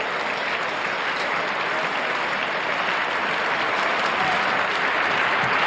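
Arena crowd applauding, a steady wash of clapping that swells toward the end as the long jumper begins her run-up.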